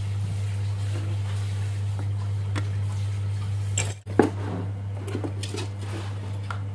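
A steady low hum, broken by a brief dropout about four seconds in, after which come a sharp click and a few lighter knocks as a hand picks up and handles a metal LED floodlight on a workbench.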